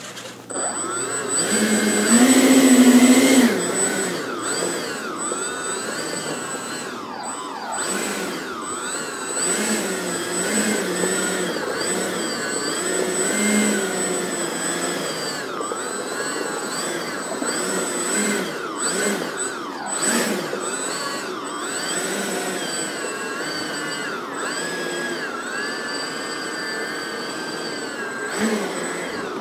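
Twin 80 mm electric ducted fans of a Freewing F-14 model jet whining as the throttle is worked during a taxi test. They are loudest in a burst of power about two seconds in, then keep rising and falling in pitch as the jet rolls and turns.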